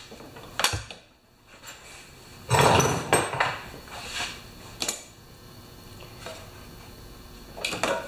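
Hands pulling the black plastic air-cleaner housing off a Honda GCV190 mower engine to get at the carburetor: a sharp click under a second in, a clatter of hard plastic and metal parts about two and a half seconds in, lasting about a second, then a few lighter clicks.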